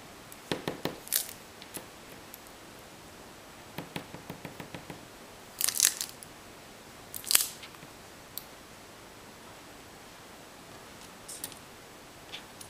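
Paper-craft handling sounds on a cutting mat: scattered light clicks and paper rustles as a glue bottle and a small punched paper label are handled, with two louder, short scratchy rustles about six and seven and a half seconds in.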